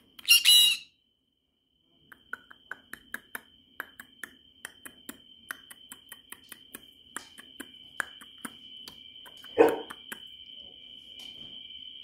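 Green-cheeked conure giving one short, loud, shrill squawk about half a second in. From about two seconds on comes a run of sharp clicks and taps over a faint steady high whine, with one louder call near the tenth second.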